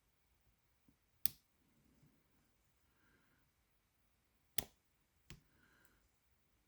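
Sharp, isolated metal clicks from a lock pick and tension tool working a small padlock's keyway: one about a second in, then two more close together near the middle, with a few fainter ticks between.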